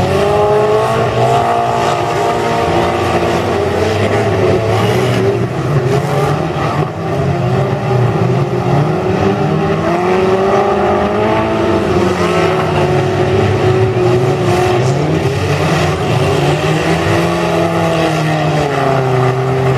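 Several dirt-track race cars, old small hatchbacks, running hard together. Their engines rise and fall in pitch as the drivers accelerate and lift around the track, with several engines overlapping.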